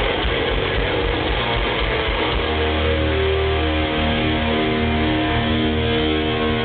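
Thrash metal band playing live, heard from the crowd: loud, heavily distorted electric guitars and bass. From about two and a half seconds in, a held chord rings out over a steady low drone.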